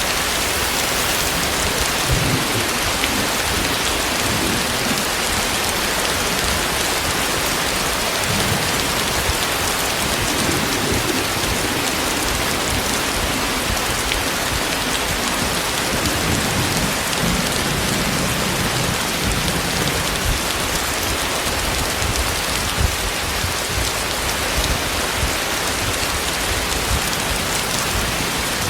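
Heavy rain falling steadily, with low rumbles of thunder about ten seconds in and again around sixteen to nineteen seconds in.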